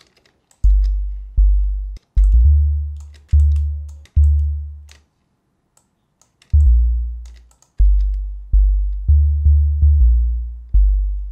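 Deep 808 bass notes from a sine-wave synth with a decay, sounding one at a time on the notes of the G minor triad. Each note starts sharply and fades. There is a pause of about a second and a half midway, and the notes come quicker near the end. Faint clicks sound between them.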